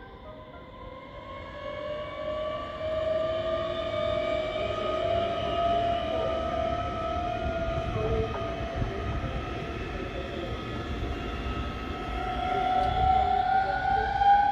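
Electric passenger train pulling out, its traction motors whining and slowly rising in pitch as it gathers speed, over a low rumble of the wheels on the track.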